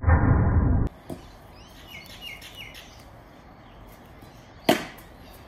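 A loud, low burst of noise that cuts off abruptly about a second in, then birds chirping a few short falling notes in the background. Near the end comes one sharp crack of a cricket bat striking the ball.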